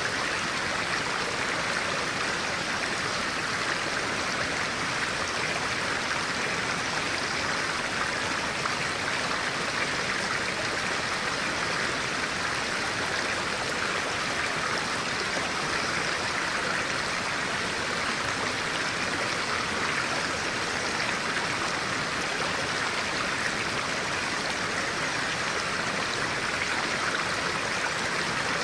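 Steady, even rush of a flowing stream of clear water, with no change in level.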